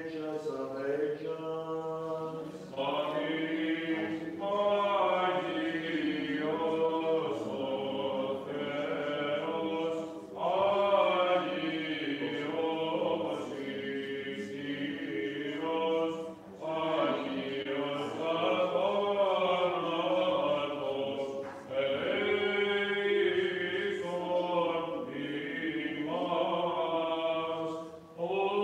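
Byzantine chant sung by the church chanters: long, slowly winding melodic phrases, with short breaks for breath several times.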